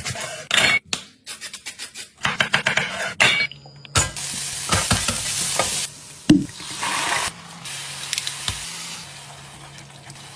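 Food stirred in a hot pan with quick, repeated scraping strokes, then a steady sizzle of frying, with one sharp knock a couple of seconds into the sizzle.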